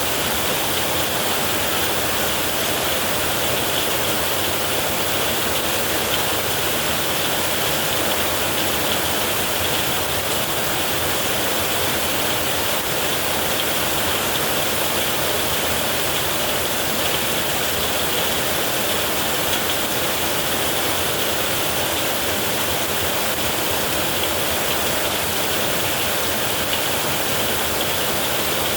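Steady heavy rain drumming on a metal roof, an even hiss of drops without a break.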